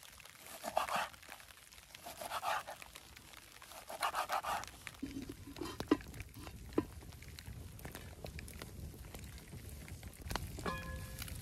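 Knife drawn through raw meat on a wooden cutting board, three even slicing strokes about a second and a half apart. Then a campfire crackles with a few sharp pops, and near the end a metal pan lid clinks and rings briefly.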